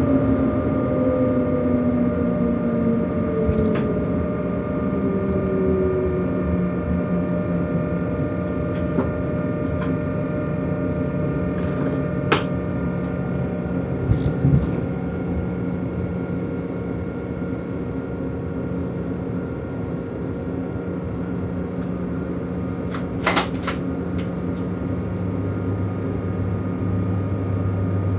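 Inside the cab of an ÖBB class 1116 Taurus electric locomotive on the move: steady running noise from the traction motors and converter, with wheel-on-rail rumble. Near the start the motor tones glide downward, then hold steady; a few sharp clicks come in the middle, and a new lower hum starts near the end.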